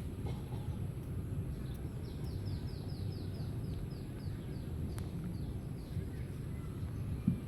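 A bird singing a quick run of about a dozen high, falling notes in the middle, over a steady low outdoor rumble, with a short low knock near the end.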